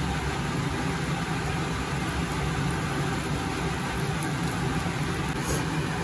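Peanuts frying in oil in a pan, a faint even sizzle, over a steady low mechanical hum.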